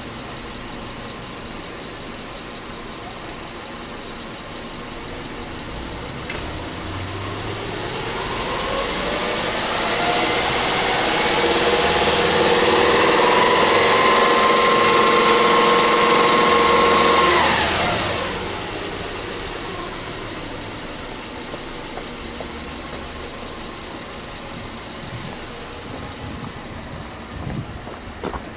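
Subaru Legacy Touring Wagon 2.5i's naturally aspirated 2.5-litre flat-four boxer engine, revved with the car standing still. It idles, then climbs steadily in pitch over about five seconds, holds high and loud for about five seconds, and drops quickly back to a steady idle.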